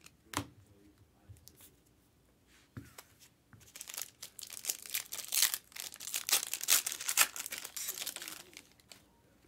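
Foil wrapper of a Panini Select trading-card pack being torn open and crinkled: a dense, papery crackling from about three and a half seconds in until shortly before the end. It is preceded by a sharp tap near the start and a softer knock about three seconds in.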